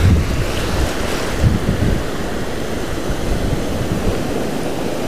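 Gulf surf breaking and washing up the sand in a steady rush, with wind buffeting the microphone in low gusts near the start and again about a second and a half in.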